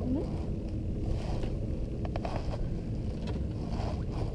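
Steady low rumble aboard a fishing boat, with a cluster of sharp clicks a little over two seconds in.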